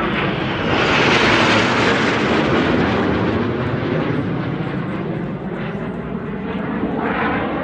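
Two Canadair NF-5 jet fighters passing overhead in formation, their twin turbojets making a loud rushing jet noise. It swells to a peak about a second in and fades, then rises again near the end.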